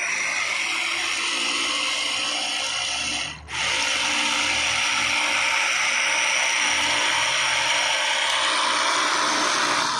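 Small metal grain mill, driven by a toy tractor through a shaft, grinding wheat into flour: a dense, steady grinding rattle that drops out briefly about three and a half seconds in.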